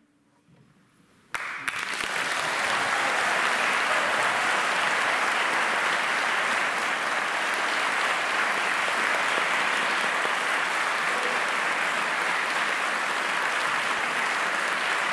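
A moment of near silence after the music, then audience applause breaks out suddenly just over a second in and continues steadily.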